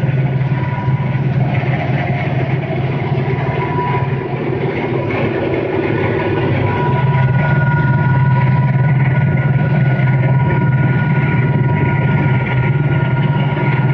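Claas Celtis tractor engine running steadily at high working revs inside the cab, under the load of driving a maize stalk shredder through the stubble, with a steady high whine alongside the low engine hum.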